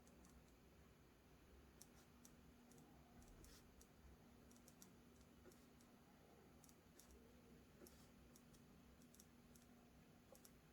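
Near silence with a faint steady hum and scattered faint light clicks at irregular intervals.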